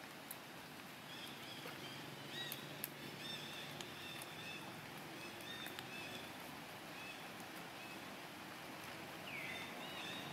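Faint outdoor background hiss with a series of short high chirps in the first half and another curved chirp near the end, with a few sharp clicks in between.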